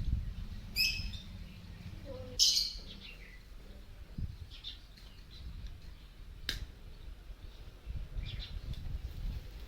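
Birds chirping a few times, most clearly about one second and two and a half seconds in, over a low rumble, with one sharp click about six and a half seconds in.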